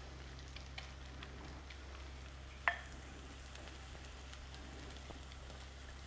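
Egg-and-noodle omelette mixture frying in hot oil in a wok, a faint steady sizzle, with one short knock about two and a half seconds in.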